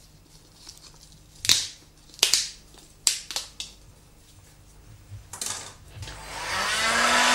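Sharp plastic clicks and snaps as vents are prised off a crash helmet's shell with a scalpel blade and put down on the bench. About six seconds in, a heat gun starts up, its blower rising to a steady rush with a low hum.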